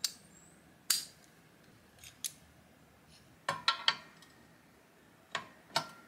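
Sharp metallic clicks and clinks of steel hand tools: a socket fitting onto a 3/8-inch extension and a Knipex pliers wrench being set onto it. Single clicks come about a second apart, with a quick run of three about three and a half seconds in and two more near the end.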